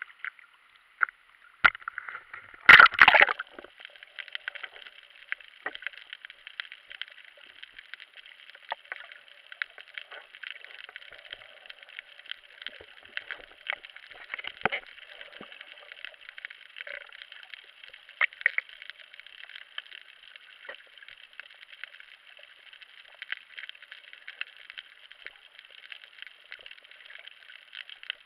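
Water sound picked up by an action camera in its waterproof housing as it is plunged under: a loud splash and gurgle about three seconds in, then a steady underwater hiss with many scattered clicks and crackles.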